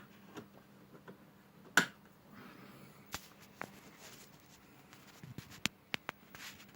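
Soft snoring breaths of a sleeping pet, one every few seconds, over a faint low steady hum, with several sharp clicks, the loudest about two seconds in.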